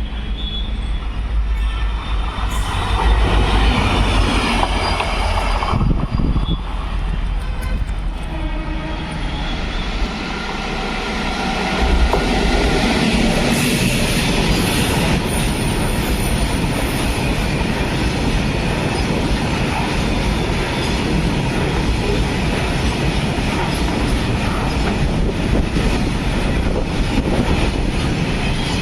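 Indian Railways train passing along the track, a loud steady rumble and rattle of wheels and wagons. High steady tones sound over the first few seconds.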